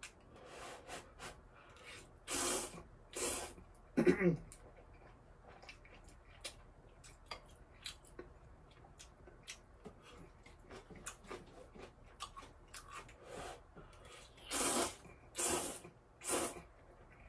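Close-up slurping of instant ramen noodles in loud bursts, two about two to three seconds in and three in quick succession near the end, with soft chewing and chopstick clicks in between. There is a short throaty sound about four seconds in.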